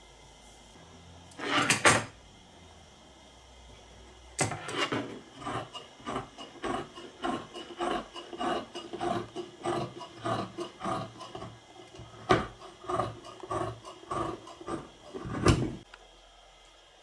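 Tailor's scissors cutting through layered fabric: a steady run of crisp snips, about two to three a second, with a few louder cuts, stopping shortly before the end. Near the start there is one short loud rustle of fabric being handled.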